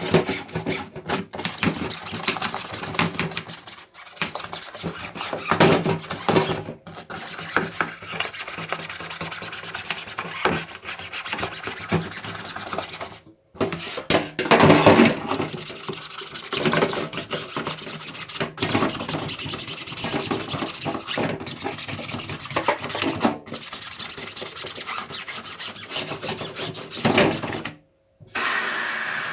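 Irregular rubbing and scrubbing strokes on a Bosch tumble dryer's fluff filter, clearing the lint off it, broken by two short pauses.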